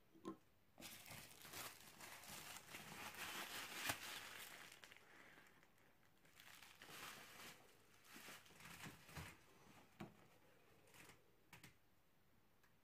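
Plastic bubble wrap crinkling and rustling as it is handled, loudest in the first few seconds, then a few lighter crackles and small clicks.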